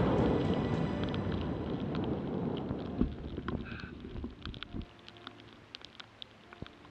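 Rushing wind noise on the microphone that dies away over the first three seconds, leaving a quieter stretch with scattered small clicks.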